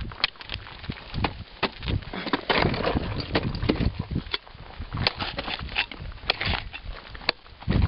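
Ice axes and crampons striking and chipping into the ice of a frozen waterfall: a run of sharp, irregular knocks and cracks, some close together, with small pieces of ice rattling down.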